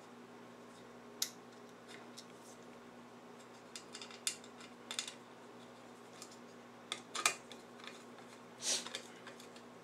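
Scattered small metallic clicks and scrapes of a screwdriver turning screws into a Leslie two-speed upper motor's mounting, the screws run in only partway. A faint steady hum lies underneath.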